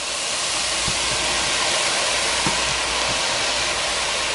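Vegetables frying in hot oil in a pot: a steady sizzle that swells a little in the first second, as the sliced mushrooms go in with the onion, pepper and bok choy.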